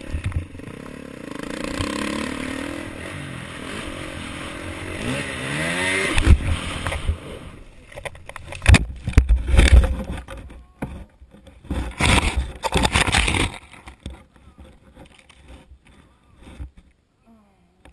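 Dirt bike engine running, then revving up with a rising pitch. About six seconds in, the bike crashes off the track, giving several heavy thumps and scraping through brush over the next several seconds. After that the engine noise is gone and only small rustles remain.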